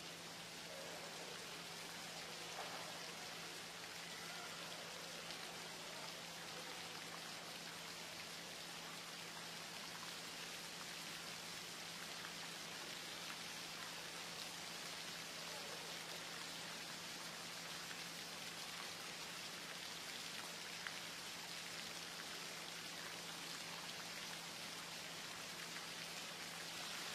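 Hushed swimming-pool hall ambience: a steady hiss with a faint low hum underneath.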